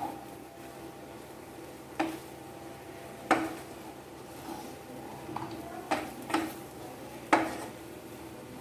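A spoon stirring mushrooms in a cooking pan, knocking against the pan about six times with short clinks that ring briefly, with scraping between them.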